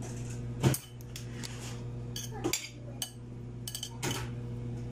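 Metal spoon clinking and knocking against a ceramic soup bowl and plate, about seven short clinks with the loudest just under a second in, over a steady low hum.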